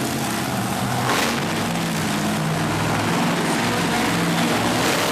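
Monster truck engine running loud, its pitch rising and falling as the throttle changes.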